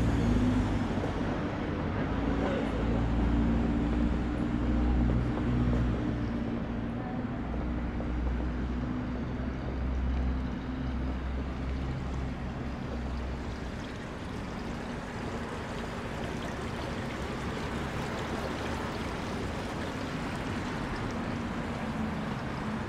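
City street ambience: a nearby vehicle engine running with a low, steady hum that fades away about fourteen seconds in, leaving an even background wash of city noise.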